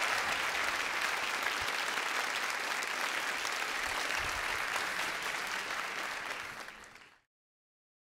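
Large audience applauding steadily, a dense patter of many hands clapping, which fades out near the end.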